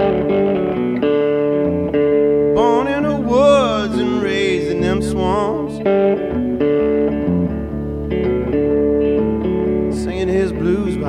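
Background music: a guitar-led song with steady chords, and a wavering singing voice coming in about two and a half seconds in and again near the end.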